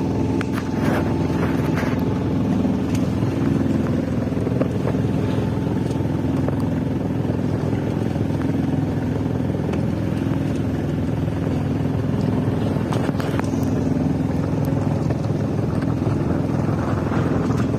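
A sailing yacht's engine running steadily while motoring, a low even drone with a few faint knocks over it.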